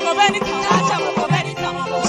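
Gospel praise music: a woman sings into a microphone over live band accompaniment, her voice wavering on held notes.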